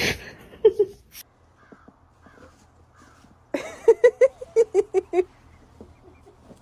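An animal giving a quick string of about ten short, pitched calls, starting about halfway through, after a single short call near the start.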